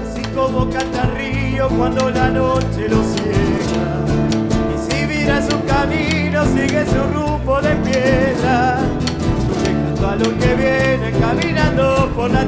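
Instrumental interlude of a live Argentine chacarera: strummed acoustic guitar and regular percussion strokes under a wavering melody line with vibrato.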